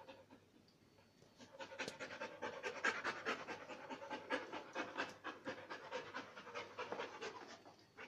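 Rottweiler panting quickly, several short breaths a second, starting a little over a second in and stopping just before the end.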